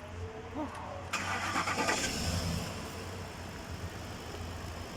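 Ford Expedition engine cranked and catching about a second in, with a loud burst of starter and engine noise, then settling into a steady low idle.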